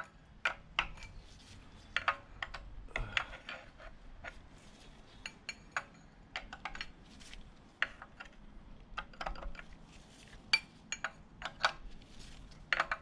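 Irregular metallic clinks and taps of small metal engine parts being handled and set down: the oil pump gears coming out of a VQ37VHR engine block.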